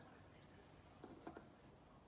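Near silence: room tone, with a couple of faint soft taps about a second in.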